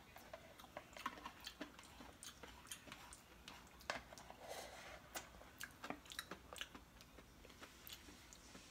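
A person eating instant Korean ramen: faint, irregular chewing and mouth clicks.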